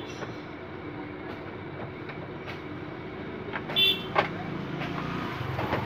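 Steady background traffic noise, with a short horn toot and a couple of sharp knocks about four seconds in.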